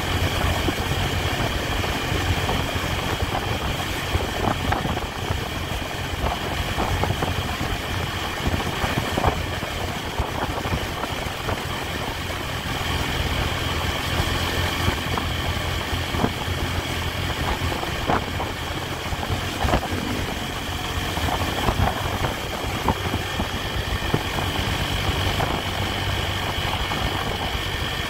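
Honda Tiger's 200 cc single-cylinder four-stroke engine running steadily while the motorcycle cruises along a road, heard from the rider's position.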